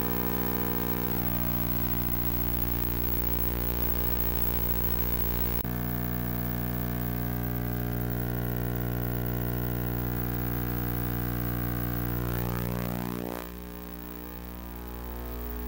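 Background music made of sustained synthesizer chords, with a sweeping change about twelve seconds in and a drop in level soon after.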